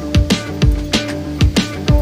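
Background music with a steady drum beat over sustained instrument notes.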